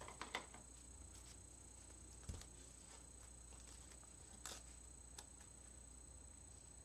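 Near silence: room tone with a few faint, short clicks and rustles as hands handle a card, thread and a roll of adhesive tape.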